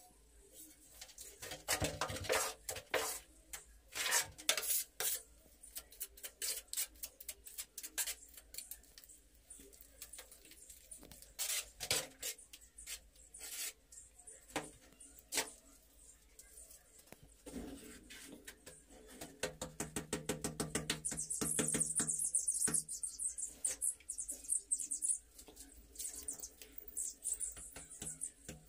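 Metal trowel clinking, tapping and scraping against ceramic wall tiles and cement mortar as tiles are set and bedded. Irregular sharp clicks and taps, then a run of quick scraping strokes about two-thirds of the way through.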